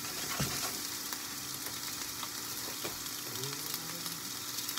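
Sliced mushrooms sizzling steadily in hot oil in a frying pan as they sauté, with a couple of faint clicks.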